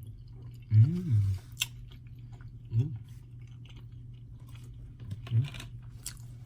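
A man chewing a mouthful of lasagna, with wet mouth clicks and smacks and a few short closed-mouth hums.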